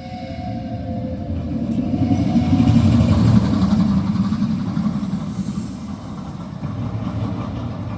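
Rumbling, rolling vehicle sound effect from a light-and-sound show's soundtrack, swelling to its loudest about three seconds in, then easing a little.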